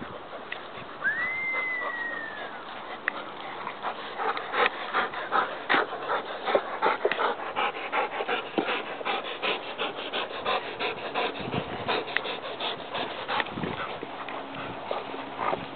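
A dog chewing and crunching a piece of bark, giving a quick, irregular run of dry cracks and snaps. About a second in, there is one short high whine that rises and then falls away.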